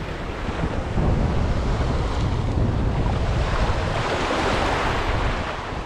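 Small waves washing and breaking over rocky shallows, with wind rumbling on the microphone.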